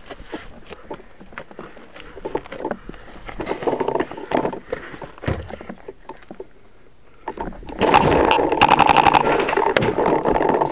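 Camera handling noise: rubbing, scraping and knocks as it is moved against clothing and cover. About eight seconds in this turns into a loud stretch of rustling, with a quick run of sharp clicks near its middle.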